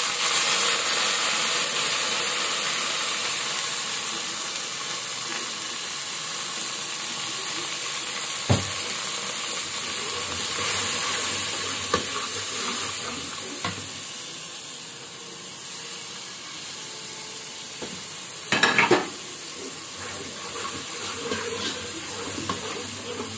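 Water poured into hot oil with fried onions and masala, sizzling and hissing loudly at first and slowly settling down. A steel ladle stirs the metal pot, clinking against it a few times, with a louder clatter about three-quarters of the way through.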